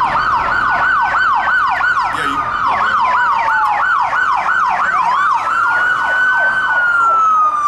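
Emergency vehicle siren in a fast yelp, about three sweeps a second. A slower wailing tone rises about five seconds in and falls away near the end.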